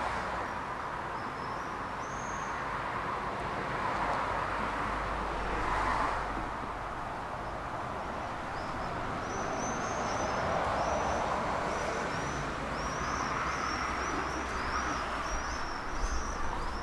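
Steady road traffic noise with passing vehicles swelling a few times. Small birds chirp in short, high, repeated calls, sparse at first and almost continuous in the second half.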